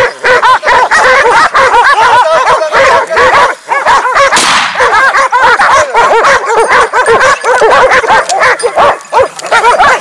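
A pack of hunting hounds barking and yelping nonstop, many voices overlapping, as they bay at and bite a downed wild boar.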